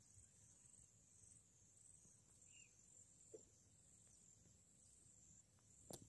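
Faint outdoor ambience at near silence: a steady, high, gently pulsing insect chorus, with a soft chirp and a couple of light clicks.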